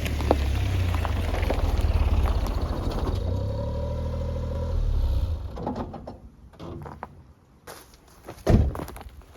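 A vehicle's engine running low and steady, dying away after about five seconds. A few knocks follow, then one heavier thump near the end.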